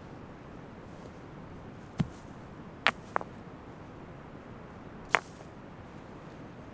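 Four sharp knocks of hard objects being handled, the first with a dull thud, two close together about a second later and one more a couple of seconds after, over a steady background hiss.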